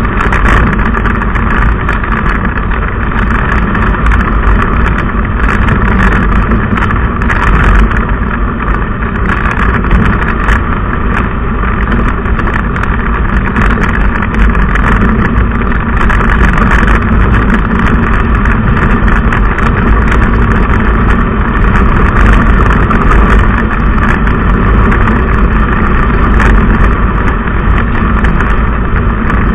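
Steady road noise of a moving car heard from inside the cabin: engine and tyres running on the road, loud and even throughout.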